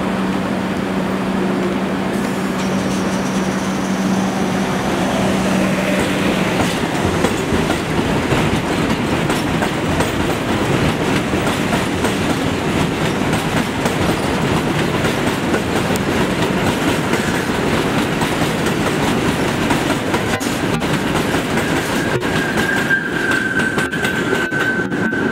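R62A subway cars on the 1 line pulling out of an elevated station, with a loud steady rumble and clatter of wheels over the rail joints. Near the end a high, steady whine joins in.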